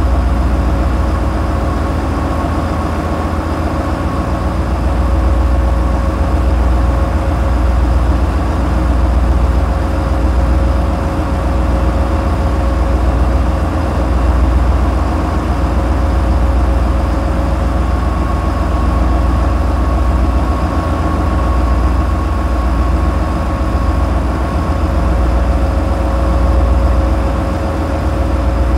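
Tugboat's 450-horsepower engines running at a constant speed: a steady, heavy low drone that swells and dips gently, with faint steady whining tones above it.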